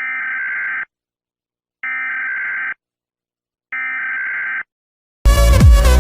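Emergency Alert System SAME digital data bursts: three identical buzzy bursts about a second long, each followed by a second of silence, sent at the close of the alert. Loud electronic dance music starts near the end.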